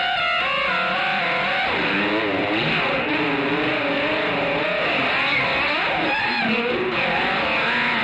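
Electric guitar (a Fender Jaguar) played through an Electro-Harmonix Polyflange in chorus mode into a Fender Twin Reverb amp. The chorus gives the notes an even, wavering wobble in pitch.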